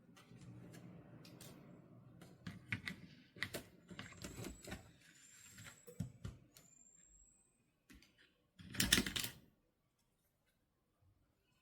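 Quick irregular clicks and taps of plastic toy packaging and doll pieces being handled, with a faint high rising squeak partway through, then one brief louder rustling scrape about nine seconds in.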